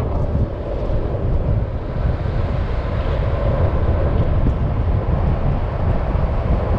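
Wind buffeting the microphone at speed over the steady rolling of longboard urethane wheels on asphalt during a fast downhill run.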